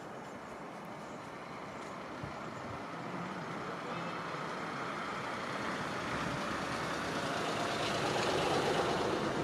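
A motor vehicle approaching along the road, its noise growing steadily louder over several seconds.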